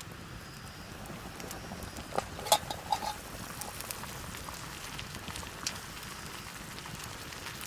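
Wood campfire crackling, with scattered sharp pops over a steady hiss and a few louder clicks about two to three seconds in.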